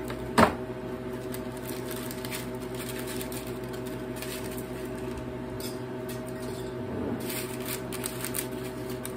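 Light rustling and crinkling of parchment paper and crisp freeze-dried zucchini chips being handled on a metal sheet tray, with one sharp clack about half a second in. A steady machine hum runs underneath.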